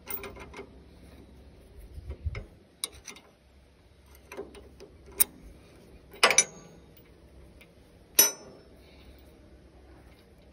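A spanner working the bolts on a hay baler's plunger: scattered sharp metal clicks and clanks, the loudest a close pair about six seconds in and another about eight seconds in.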